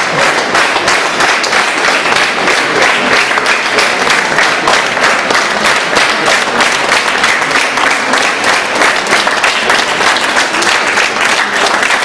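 Crowd applauding, the clapping falling into a steady, even rhythm.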